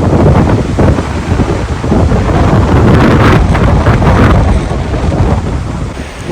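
Strong wind gusting over the microphone as a loud, low rumble, mixed with ocean surf breaking. A brighter, louder surge swells about three seconds in and eases off after a second and a half.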